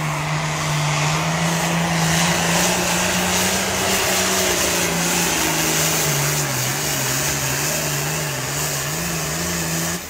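A hot farm pulling tractor's engine running flat out under load as it pulls the sled, loud and steady. In the second half its pitch wavers up and down, and the sound drops off suddenly at the very end as the run finishes.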